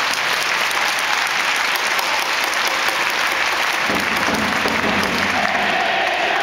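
Stadium crowd of football supporters applauding steadily. About four seconds in, the crowd's voices join the clapping, and a held, chant-like note rises near the end.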